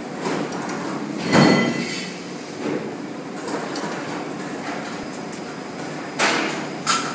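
A thin 0.8 mm cold-rolled steel sheet blank being handled and laid onto a press die. The sheet flexes loudly with a metallic ring about a second and a half in, then scrapes and knocks against the steel die as it is slid into place near the end, over a steady machine hum.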